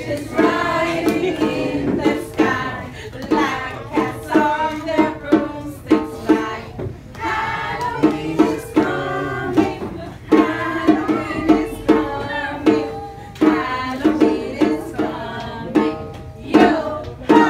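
A Halloween song: singing over instrumental music with a steady, regular beat.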